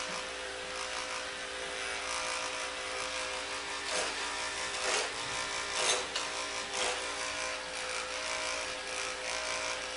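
Electric hair clippers with no guard running with a steady buzz while cutting short hair over a comb, with four brief louder moments about a second apart midway through.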